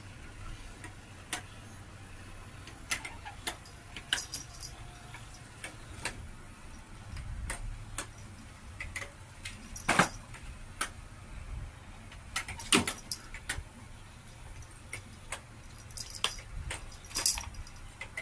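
Irregular light clicks and taps with occasional brief metallic jingling, and a faint low hum beneath.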